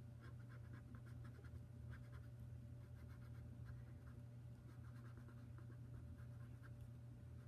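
Faint scratching of a fine pen tip on paper in many short, quick strokes, over a steady low hum.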